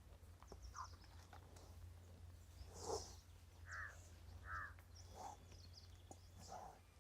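Faint outdoor bird calls: a scattered run of short chirps and calls, the loudest about three seconds in, over a steady low rumble.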